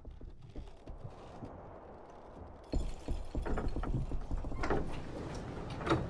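Sound effects from a music video: a low rumble, then from about three seconds in a run of soft, irregular knocks and clunks of wooden doors and objects being handled.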